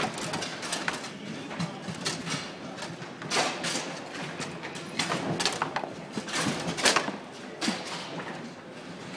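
Foosball game in play: the hard ball struck by the figures and knocking against the table's walls, with rods and handles clacking, in irregular sharp knocks, the loudest a little after three seconds in, around five seconds and near seven seconds.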